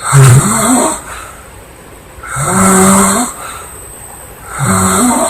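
A sleeping woman snoring loudly: three snores of about a second each, a little over two seconds apart, each with a buzzing pitch, with quieter breathing between them.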